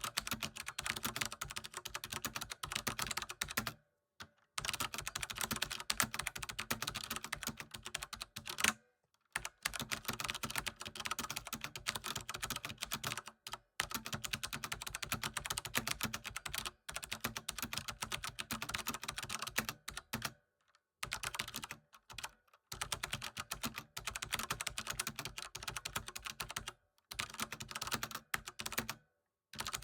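Computer keyboard typing: fast, continuous key clicks in runs of several seconds, broken by brief pauses.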